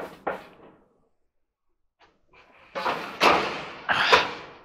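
Sheet-metal bangs and rattling of a White Westinghouse clothes dryer's front panel being knocked against the cabinet while it is fitted onto its little bottom hooks. Two light knocks come at the start, then a run of louder clanks with a ringing rattle in the second half.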